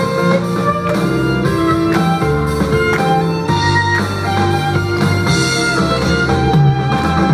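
Live violin and contrabass duo playing a pop-style song: a violin melody of held notes over a steady contrabass line.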